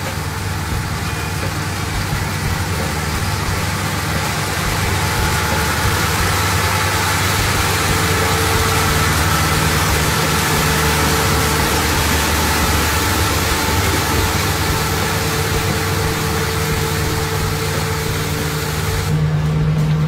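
Rice combine harvester running under load as it cuts and threshes, a steady mechanical din of engine and machinery with a hiss of crop and straw. Near the end the high hiss drops away, leaving a deeper, steadier hum.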